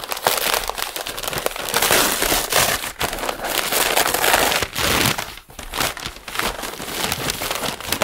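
Brown kraft paper wrapping being torn and crumpled off a parcel by hand: a loud, dense, irregular crackling rustle with a few brief lulls.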